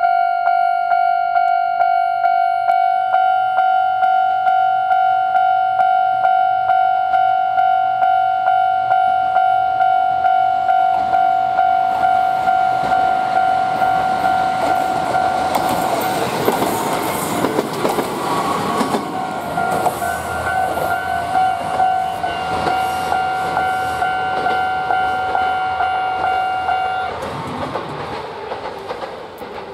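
Japanese level-crossing warning bell ringing in a rapid, even pulse while a Tsugaru Railway Tsugaru-21 diesel railcar approaches and passes, wheels clattering over the rail joints. The train is loudest about halfway through. The bell stops shortly before the end as the train moves away.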